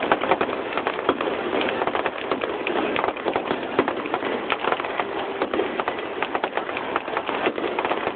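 Fireworks finale barrage: a dense, unbroken run of rapid pops and bangs as shells and comets are fired in quick succession.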